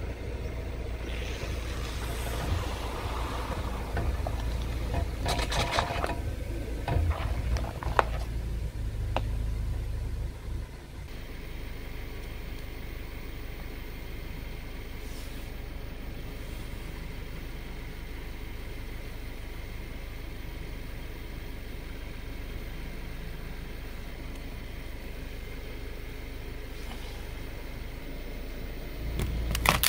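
Car tyre rolling onto a plastic cola bottle, the plastic crackling with several sharp cracks over a few seconds. This is followed by a steady low hum with no distinct events, and a loud crunching starts just at the end.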